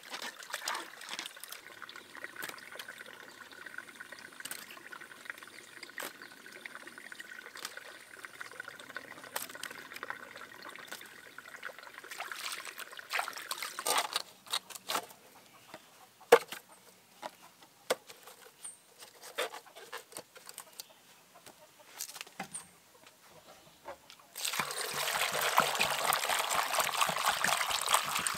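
Water trickling and pouring, with scattered clicks and knocks. Near the end comes a louder, steady rush of pouring water.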